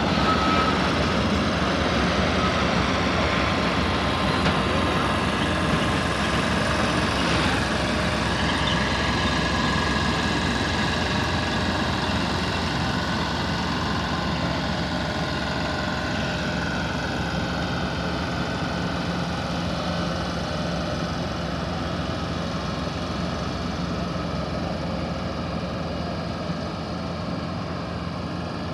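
Heavy truck's diesel engine running steadily as it hauls an oversized load on a multi-axle trailer, with a dense drone that slowly fades as it moves away.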